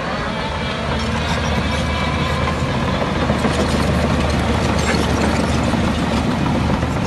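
Heavy diesel engine of earthmoving machinery running steadily, getting a little louder about a second in.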